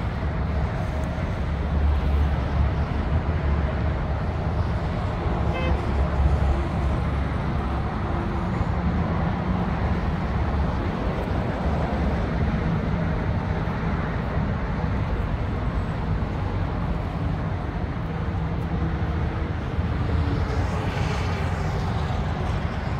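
Steady highway traffic noise: a continuous low rumble from cars and trucks on the interstate and its overpasses, with one vehicle passing louder near the end.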